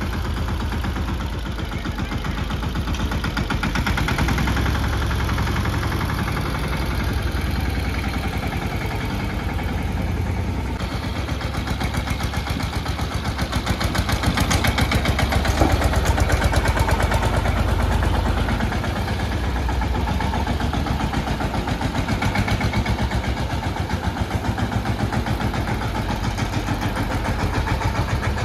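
Mahindra Yuvraj 215 tractor's single-cylinder diesel engine running with an even, rapid chugging, getting somewhat louder for a few seconds midway.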